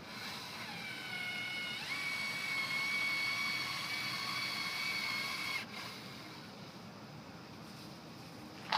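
Battery-powered caulking gun's motor whining as it lays a bead of urethane for the windshield, stepping up in pitch about two seconds in, then running steadily and cutting off suddenly after about five and a half seconds.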